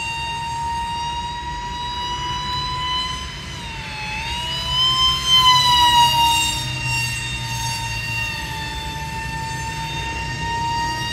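Motor whine of a radio-controlled F-22 model jet in flight: a steady high whine that dips and then rises in pitch about four seconds in. It is loudest around five to six seconds in, as the plane passes close overhead.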